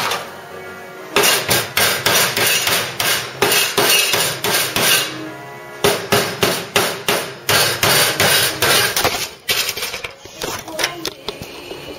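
Ball-peen hammer striking a welded-in steel patch panel on a Ford Cortina Mk3 floor pan. Quick runs of sharp metallic taps, about five a second, break off twice briefly and turn sparser and lighter near the end, as the patch is tapped into shape.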